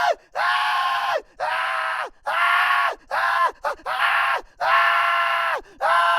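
A rapid series of high-pitched human screams, about seven or eight short cries in a row. Each holds a steady pitch and then drops off at the end, with brief gaps between them.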